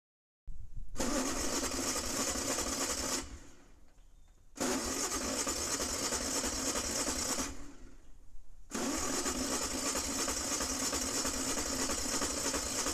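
Golf cart gas engine being cranked by its starter in three bursts of a few seconds each, stopping in between, without catching and running.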